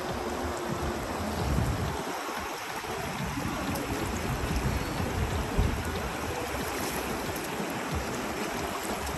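Shallow river water rushing steadily over a rocky bed, with rapids nearby.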